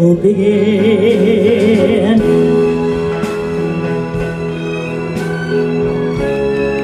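Female singer holding the word "begin" with wide vibrato over an orchestra, the voice ending about two seconds in. The orchestra, with strings, plays on alone in steady held chords.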